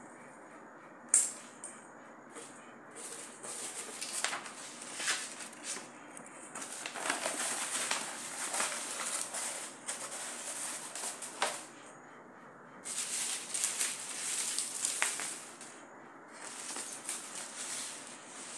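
Paper pattern pieces and satin fabric rustling as they are handled, in several stretches of a few seconds with pauses between. A single sharp click about a second in is the loudest sound.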